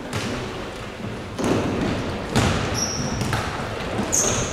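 Futsal ball thudding off feet and the court floor about five times, with sneakers squeaking briefly on the hall floor twice near the end.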